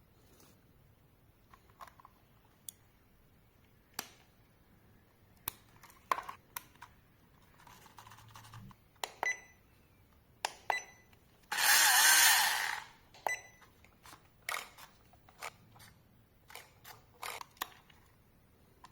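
Scattered clicks and taps of plastic parts and packaging being handled while unboxing a small RC car, with a louder noisy rustle lasting over a second about twelve seconds in.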